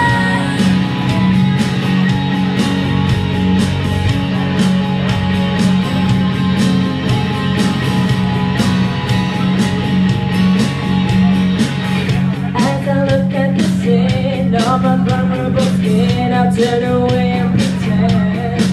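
Rock backing track with guitar and a steady drum beat, played through PA speakers. A woman's live singing voice comes back in over it about two-thirds of the way through, after an instrumental stretch.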